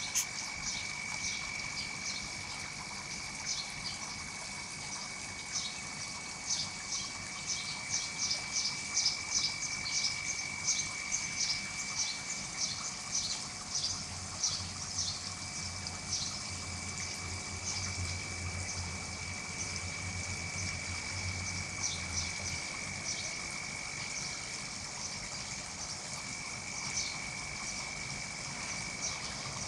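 Rapid, repeated high-pitched animal chirps, busiest in the first half, over a steady high whine. A low hum comes in about halfway through and stops several seconds later.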